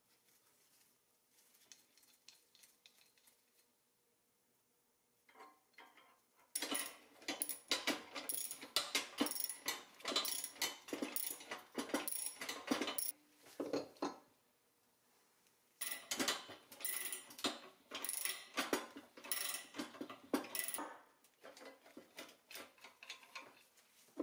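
A ratchet wrench clicking rapidly as small nuts and bolts are tightened, in two bouts of several seconds with a short pause between. The first few seconds hold only faint handling clicks.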